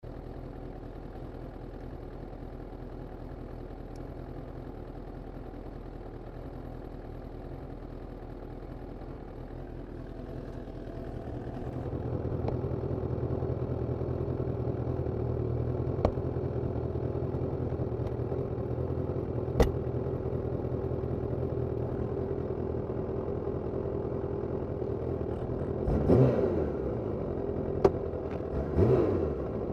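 Suzuki Katana 750 inline-four motorcycle engine idling, heard from under the seat, growing louder about twelve seconds in. Near the end the throttle is blipped twice, each a short rise and fall in revs, with a few sharp clicks between.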